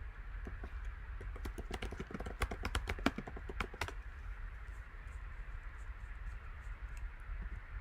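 Typing on a computer keyboard: a quick run of keystrokes through the first half, then only a few faint scattered clicks, over a steady low hum.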